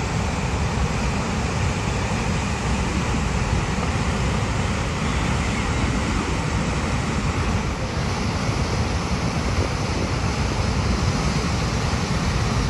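Steady rush of a large volume of whitewater pouring down a steep, smooth rock slide rapid.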